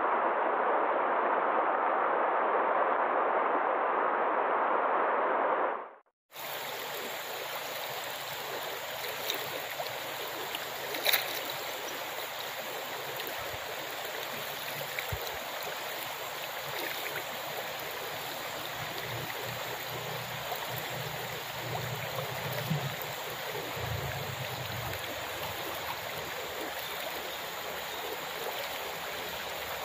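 Running water, a steady rush like a waterfall or stream. About six seconds in it cuts out for a moment and comes back quieter and hissier, with one faint click about eleven seconds in.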